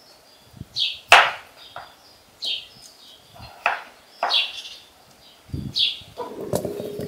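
A kitchen knife cutting peeled potatoes on a wooden cutting board, the blade giving a few sharp knocks on the board. A small bird chirps short calls in between, about every second and a half.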